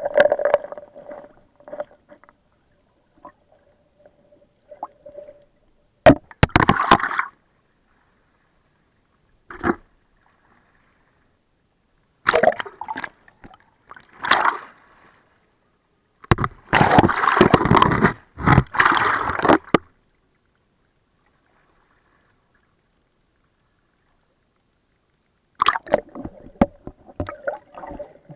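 Water sloshing and bubbling heard through an underwater camera's housing, in irregular muffled bursts with clicks, with quiet stretches between them. A faint steady hum sits under the sound near the start and the end.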